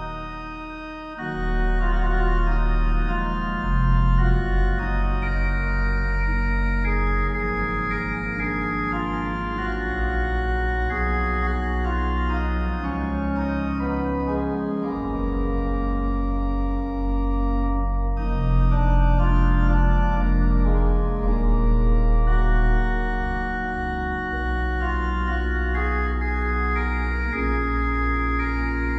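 Slow, sustained organ chords with deep bass notes, the chords changing every few seconds. The sound dips briefly at the start and swells back in about a second and a half in.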